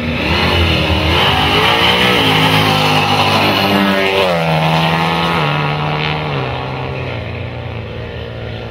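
Two drag cars launching hard and accelerating away, engines revving with their pitch climbing and then dropping in steps at the gear changes. The Honda Accord 2.0T's 10-speed automatic shifts oddly, having gone into limp mode.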